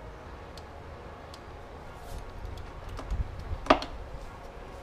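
Light, scattered clicking of a socket wrench and extension being worked in the spark-plug well of a VW 2.0L engine, with dull knocks of the tool against the engine, then one sharp metallic clink about three and a half seconds in as the tool is lifted out.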